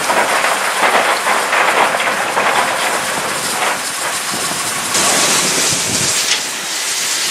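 GNR N2 class 0-6-2T steam tank locomotive hissing steam as it moves slowly, a steady rushing hiss with an uneven texture.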